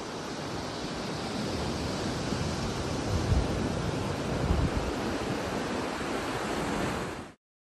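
Steady rush of sea surf on the beach mixed with wind on the microphone, with a few low gusts buffeting it; the sound cuts off suddenly near the end.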